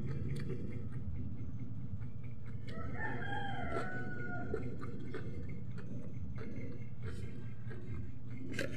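A rooster crowing, one long crow about three seconds in, over a steady low hum.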